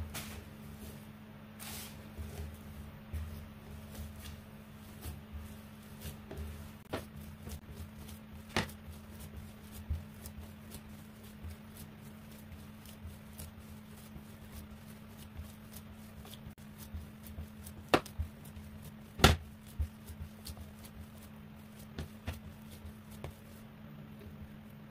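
Hands kneading and pressing sticky oat bread dough on a countertop: irregular soft pats and squishes with scattered small knocks, two sharper knocks about two-thirds of the way through. A steady low hum runs underneath.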